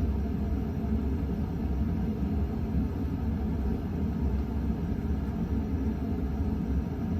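KDK Royalaire 52-inch ceiling fan running on medium speed: a steady low rumble of motor and moving air.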